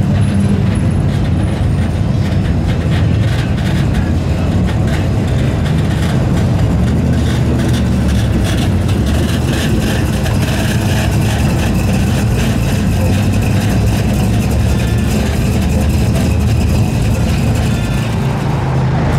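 Classic cars and pickup trucks cruising slowly past one after another, their engines running in a steady low rumble.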